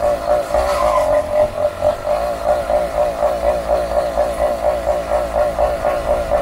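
80cc two-stroke engine of a motorized bicycle, breathing through a new aftermarket exhaust, running at low revs. It has an uneven, panting beat of about six pulses a second while the bike slows.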